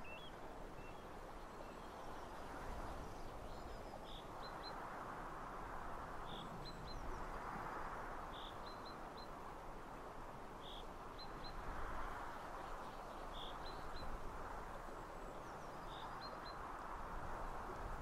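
Wind rustling through the hedge and trees in slow swells, with a small bird repeating a short high call of a note and two quick chirps about every two seconds.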